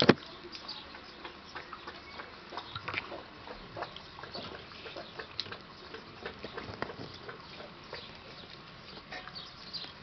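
Black Russian terrier lapping water from a steel bowl: soft, irregular wet clicks and splashes, several a second.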